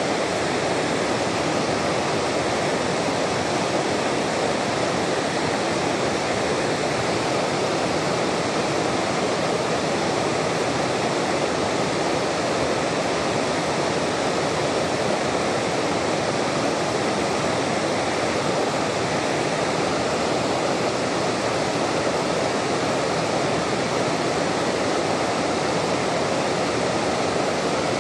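Water pouring over a low stepped concrete river weir into the pool below: a steady, even rush with no change in level.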